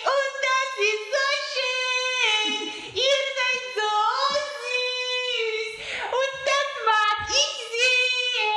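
A child singing alone with no instruments, in high notes that are held and then step to new pitches.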